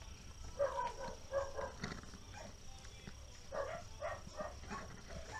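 Faint dog barking: a run of short barks about half a second in, and another about three and a half seconds in.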